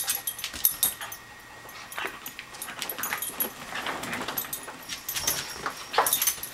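A corgi and a cairn terrier at play, scuffling on a hard vinyl floor with many short clicks and rattles.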